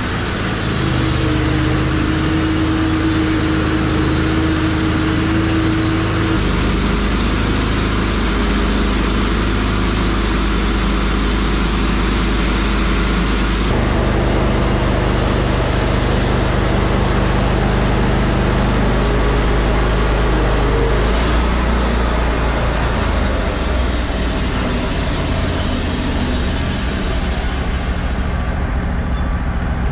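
Wood-Mizer LT15 Wide portable bandsaw mill running, its band blade sawing lengthwise through an ash log. The drone is steady but changes abruptly a few times.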